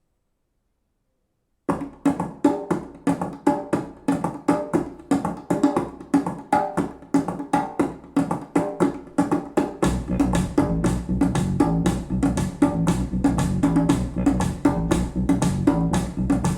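Music played back through Yamaha NS-100 two-way bass-reflex speakers for a listening test. After nearly two seconds of silence, a track starts with a fast percussive, plucked rhythm, and a heavy bass line joins about ten seconds in.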